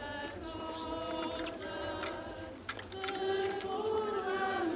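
A crowd of worshippers singing a hymn together in slow, held notes, with a few short knocks.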